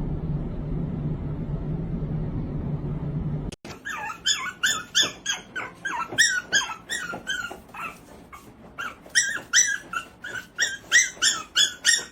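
A dog whining in quick, high-pitched yelps, about two a second, with a short lull midway. Before the yelps, a steady low hum cuts off suddenly about three and a half seconds in.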